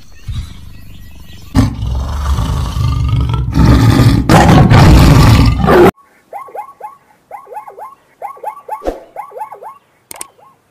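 A tiger growls low, then gives two long, loud roars. About six seconds in it cuts off abruptly, and a zebra's barking call follows: quick runs of short, falling yelps in several groups, with one sharp knock near the end.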